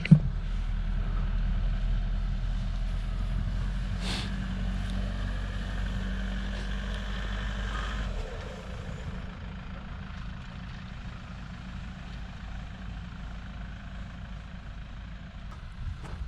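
Motor vehicle running: a steady low engine and road rumble that eases off about eight seconds in, with a single brief knock about four seconds in.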